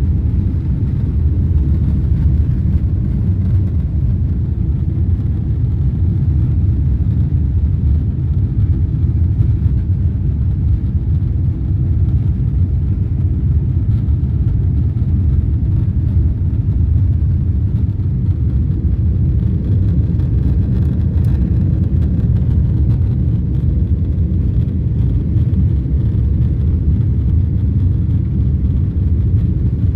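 Jet airliner on takeoff heard from the passenger cabin: a steady low rumble of engines and airflow that holds even throughout.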